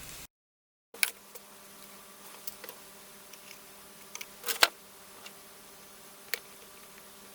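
Scattered light clicks and taps from handling small objects at a workbench, the loudest few about four and a half seconds in, over a faint steady electrical hum.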